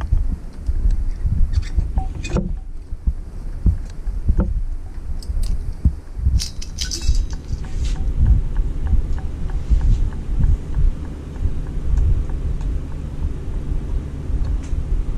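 Hand-tool work on a headlight mount: sharp metal clicks and clinks of a screwdriver and small screws, with a denser burst of clinking about halfway through, over a constant low rumbling and bumping.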